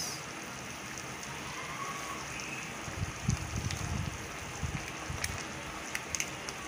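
Squid adobo simmering in a wok, a steady hiss with the crackle of the cooking liquid. A few dull low thumps come about three to four seconds in, and a few sharp crackles near the end.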